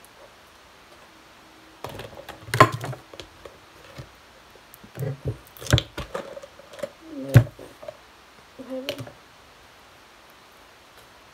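Plastic cups, lids and slime containers knocking and clattering as they are handled and tipped out into a plastic tub. A scattered series of sharp knocks runs from about two to nine seconds in, the loudest near the middle.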